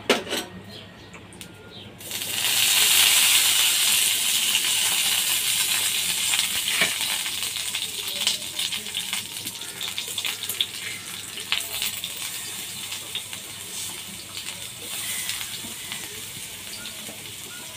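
Hot oil in a flat pan breaking into a loud sizzle about two seconds in, as curry leaves and masala-coated raw banana slices go in, with sharp crackles and spits throughout; the sizzle eases slowly as the slices fry.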